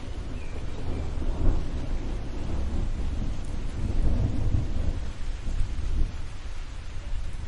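Rolling thunder rumbling over steady rain, swelling about a second in and again around the middle, then easing off near the end.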